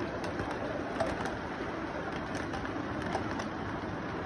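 Model train running along its track: a steady rolling whir of the wheels and motor, with faint irregular clicks.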